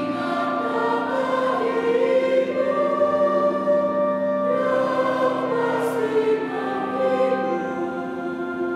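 Mixed choir of men's and women's voices singing a hymn in two parts, the voices moving between held notes over a steady low sustained note.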